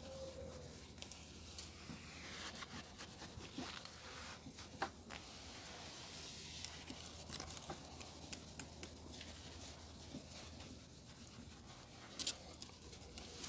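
A microfibre cloth rubbing over the spokes and rim of an alloy wheel: a faint scrubbing hiss with scattered light clicks, the sharpest about five seconds in and near the end.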